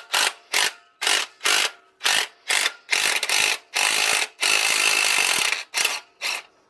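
Cordless power tool undoing the bolt of the drive-belt tensioner pulley on a BMW N47/N57 engine. It runs in short trigger bursts, about two or three a second, then in three longer runs of about a second each, with two more short bursts near the end.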